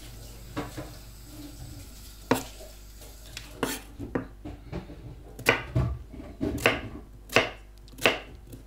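Kitchen knife cutting peeled squash into chunks on a bamboo cutting board: a few scattered knocks at first, then the blade striking the board steadily, about every three-quarters of a second, from the middle on.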